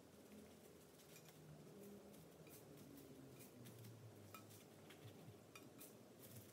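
Near silence with a few faint scattered ticks and taps from small pieces of tissue paper and a glue stick being handled on a paper plate and tabletop.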